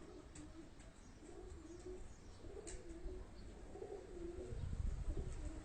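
Domestic pigeons cooing, a run of soft low warbling coos one after another, with a low rumble coming in about four and a half seconds in.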